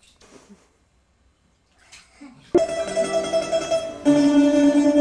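After a couple of quiet seconds with only faint sounds, music with plucked string instruments starts suddenly about halfway in and plays on with sustained notes.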